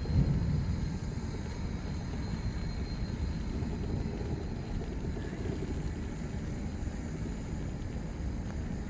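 Low, steady rumble of railway cars moving slowly, with a brief louder thump just after the start.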